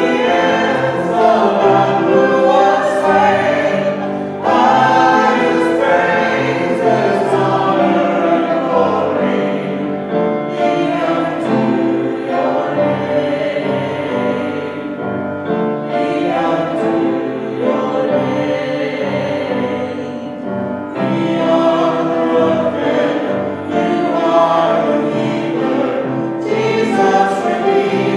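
Church worship team singing a worship song, several voices with instrumental accompaniment, in phrases of a few seconds each.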